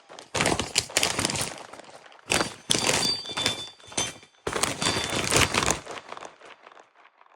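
Packaging crinkling and tearing as a mail package is opened by hand, in several bouts of rustling a second or so long, with a brief high squeak or two in the middle, dying away near the end.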